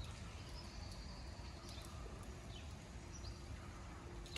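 Small birds chirping and calling, several short high chirps and one longer call, over the steady hiss of light rain with scattered drop ticks and a low rumble underneath.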